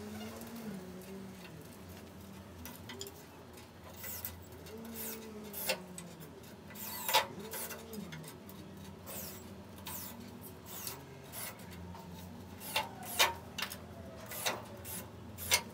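Cordless drill driving screws into wooden battens on a slate pool-table bed in a few short bursts, the motor speeding up and slowing down each time. Around it are sharp clicks and knocks from screws, tools and the wood strips being handled.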